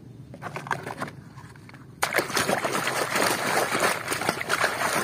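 Water splashing and sloshing as a muddy plastic toy is washed by hand: a few light splashes at first, then suddenly loud, continuous splashing from about two seconds in.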